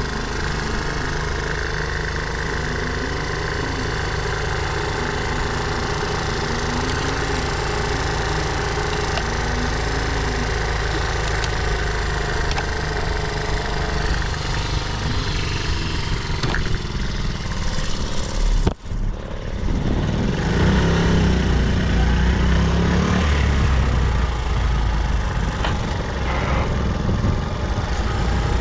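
Vintage Honda Gorilla Z50J's small four-stroke single-cylinder engine running steadily, which the seller describes as free of abnormal noises. It breaks off suddenly about two-thirds of the way through, then runs again, a little louder.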